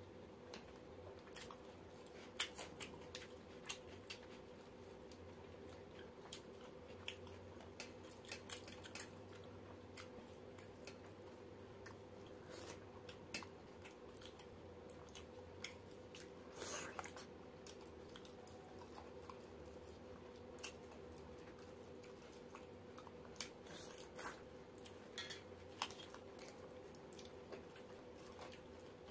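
Two people eating roti and chicken curry with their hands: scattered, faint chewing and mouth sounds, with small clicks of fingers tearing roti against steel plates, over a faint steady hum.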